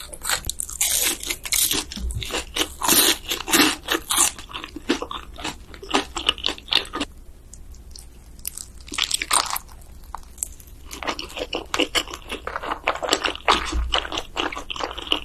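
Close-miked eating: repeated crunchy bites and chewing, with a short lull in the middle before the chewing picks up again.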